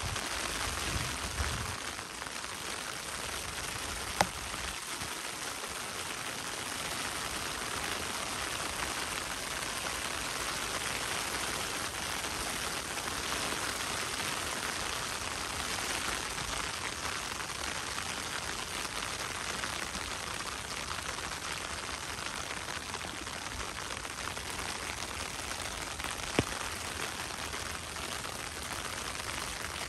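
Steady rain falling, an even hiss with two sharp ticks, one about four seconds in and one near the end.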